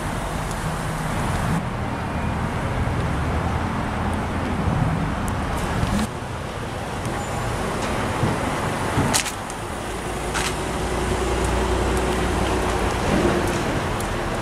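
Cars moving slowly in traffic: a steady low engine and road rumble, with a few brief clicks near the middle.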